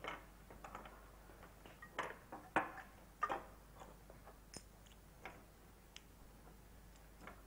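Faint, irregular clicks and knocks of small objects handled on a wooden table and of people moving about a studio set, the sharpest about two and a half seconds in and again just after three seconds.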